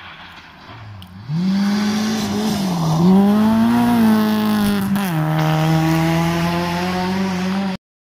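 Rally car engine at high revs on a snowy stage: faint at first, then loud about a second in, its pitch rising and falling, dipping briefly and climbing again. About five seconds in the pitch drops sharply and then holds steady until the sound cuts off suddenly near the end.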